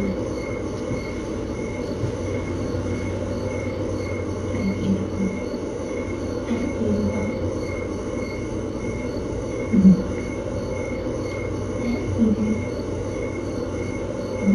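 Steady mechanical room hum and hiss with a faint high tone pulsing about twice a second. A few short low sounds stand out over it, the loudest about ten seconds in.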